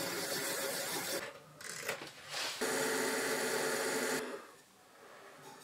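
Abrasive sanding mesh rubbing against a turned wooden piece spinning on an Axminster AW355 wood lathe. It comes in two loud spells with a short break between them, then goes much quieter after about four seconds.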